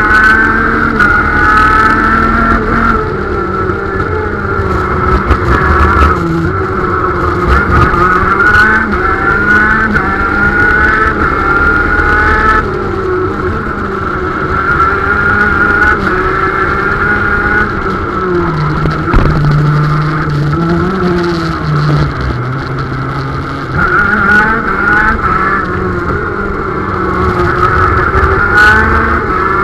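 Two-stroke 125 cc KZ shifter kart engine heard onboard at speed, its pitch rising again and again as it revs up and dropping back at each gear change. A little past the middle it runs lower and steadier for several seconds before climbing again.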